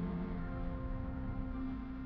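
Background score of slow ambient music with low, long-held sustained tones; the low note shifts about a quarter second in.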